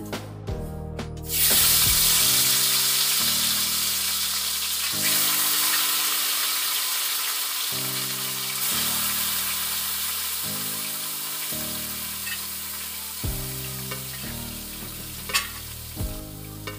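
Marinated chicken dropped into hot oil in a kadai: a loud sizzle starts suddenly about a second in and slowly dies down as the meat begins to sauté, with a few clicks near the end.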